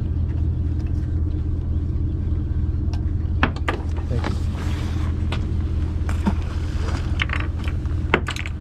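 Steady low drone of a party boat's engine, with scattered clicks and knocks from gear on deck in the second half.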